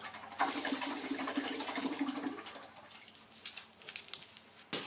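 A hot, freshly soldered cable lug plunged into water: a sudden sharp hiss about half a second in, fading into sizzling and bubbling over the next two seconds as the metal cools.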